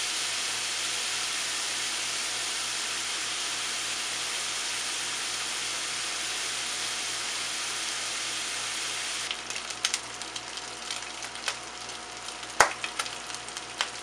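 Crumbled longganisa sausage meat frying in oil in a nonstick pan as it browns: a steady sizzle. About nine seconds in the sizzle drops and turns quieter, broken by stirring clicks and a couple of sharp taps against the pan.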